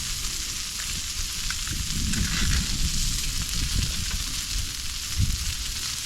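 Yakiniku meat sizzling steadily on a hot grill, with low rumbling bumps about two seconds in and a thump near five seconds.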